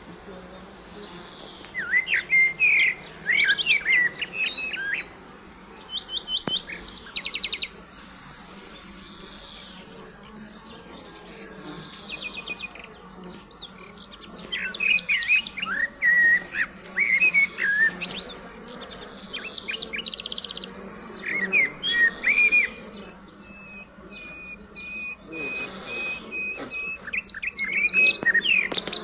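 Songbirds singing in repeated short phrases, with a long even trill near the end, over a steady low hum of honeybees flying at the hive entrances.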